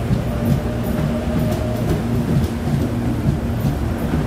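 CPTM electric multiple-unit commuter train running past close alongside the platform: a steady low rumble of steel wheels on rail, with scattered sharp clicks over the rail joints and a faint hum from the train's motors during the first couple of seconds.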